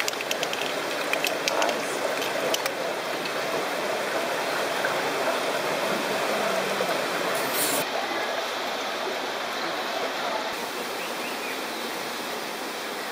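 Steady rush of flowing water, an even noise without pauses. A few faint clicks sound near the start.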